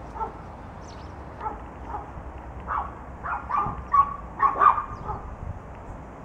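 Puppies yipping at play: short, high yips, a few at first and then a quick run of them about halfway through, some drawn out a little.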